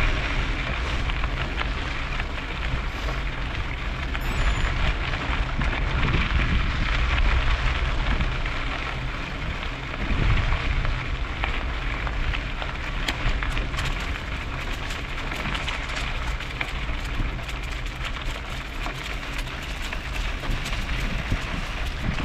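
Mountain bike tyres crunching and crackling steadily over a hard-pack dirt and gravel trail at riding speed, with wind rumbling on the microphone.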